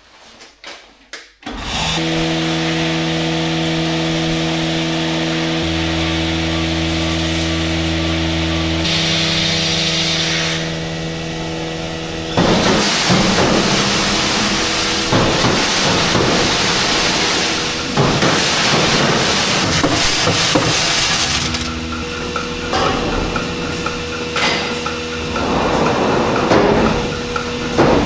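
Milking parlour machinery started from the wall control box: a steady motor hum of several tones begins about a second and a half in. Near the middle a louder, rattling, clattering noise joins in and carries on over the hum.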